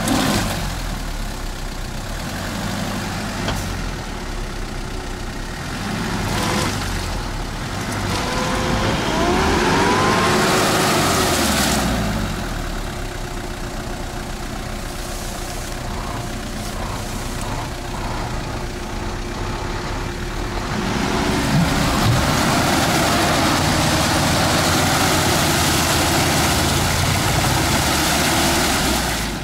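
Off-road SUV's engine running and revving as it is driven through deep mud on a tow strap, the pitch climbing in two louder stretches, one about eight seconds in and a longer one from about twenty seconds on.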